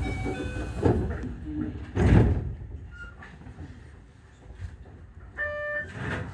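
Knocks and thumps inside a Keio 8000 series train with a low rumble underneath, the loudest thump about two seconds in. A short tone with overtones sounds near the end.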